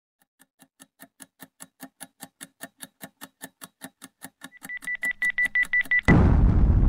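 Countdown-timer sound effect: steady clock ticking, about four ticks a second, growing louder, with a rapid high beeping joining in the last second and a half. About six seconds in, a loud bomb-explosion effect cuts in and goes on.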